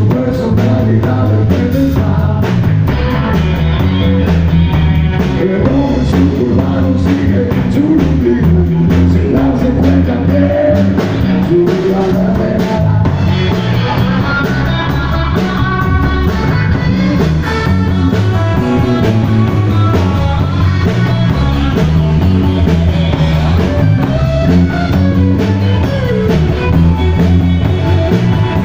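Live rock band playing loudly: electric bass, electric guitar and drum kit, with a driving beat and a heavy bass line.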